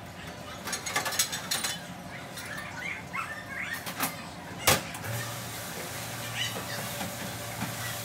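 Ceramic plates and metal dish racks clinking and clattering, then one loud clank a little past halfway. A steady low hum with a hiss follows from a commercial dish machine running.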